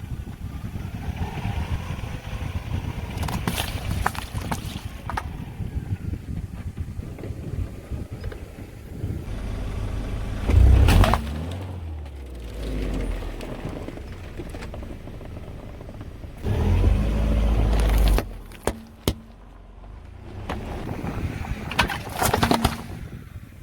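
A car engine running slowly while its tyres roll over objects, with sharp cracks and crunches several times as things break under the wheels. Two louder low surges of engine and tyre noise come about halfway through and again later.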